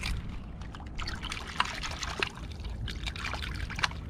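Shallow seawater trickling and splashing in irregular spurts, with a few small clicks.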